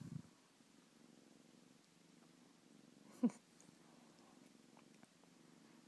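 Nursing mother cat purring softly and steadily, with one brief falling squeak about three seconds in.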